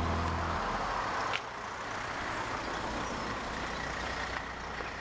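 A music cue's last held chord stops early on. Then a car rolls up and runs at idle, a steady engine and tyre noise, with one sharp click about a second and a half in.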